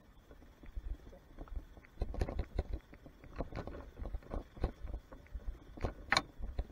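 Yamaha Serow 225 trail motorcycle jolting over a rutted, rocky dirt track: irregular knocks and rattles from the bike and its fittings over a low rumble, the sharpest knock about six seconds in.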